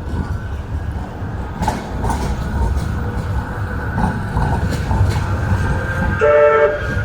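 Manchester Metrolink tram running through the stop: a steady low rumble with scattered wheel clicks and a thin high whine. Near the end its warning horn sounds once, briefly.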